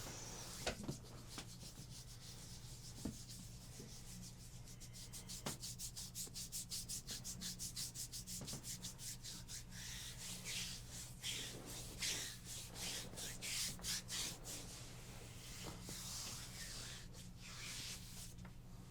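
Hands rubbing briskly over skin in a massage. Quick back-and-forth strokes of about five a second run from about five to ten seconds in, then give way to slower, longer strokes.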